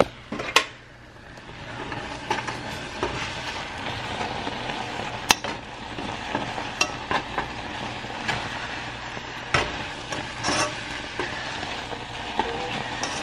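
A utensil stirring a pot of oatmeal on the stove, scraping and with a few sharp clinks against the pot, over a steady hiss of cooking.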